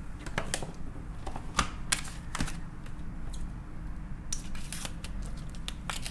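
Plastic wrap on a packaged tuna steak crinkling and ticking as a knife tip slits it open. It is an irregular run of sharp little crackles, thickest in the second half.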